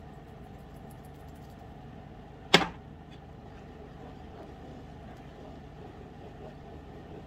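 Wooden spoon stirring a thick tomato curry sauce in a nonstick pan, with one sharp knock about two and a half seconds in, over a steady low hum.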